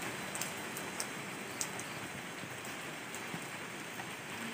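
A steady hiss like falling rain, with a few faint ticks scattered through it.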